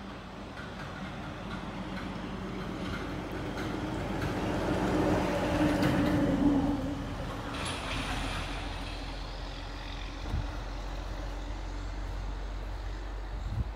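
Excavator's diesel engine running, growing louder and heavier to a peak about halfway through, then easing back to a steady run. A couple of short knocks follow later.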